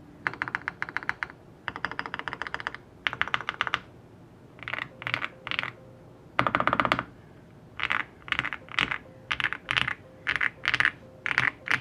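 Mr Suit tenkeyless custom mechanical keyboard being typed on: Alpaca linear switches lubed with Krytox 205g0 and filmed, in a polycarbonate plate with PE and plate foam, under GMK keycaps. Three quick runs of typing in the first four seconds and another about six and a half seconds in; between them, single keys are struck one at a time about half a second apart.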